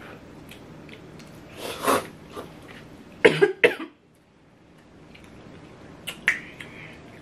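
Coughing brought on by eating extremely spicy noodles: a cough about two seconds in, then two sharp coughs in quick succession around the middle.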